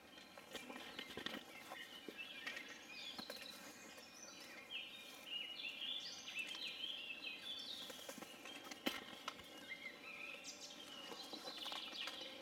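Birds chirping in the background, many short high notes overlapping, with a few light clicks.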